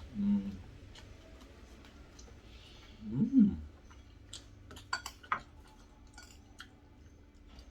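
Eating sounds: a spoon clinking against a plate or bowl several times, sharp light clicks clustered in the middle. About three seconds in comes the loudest sound, a brief hum of the eater's voice while he chews.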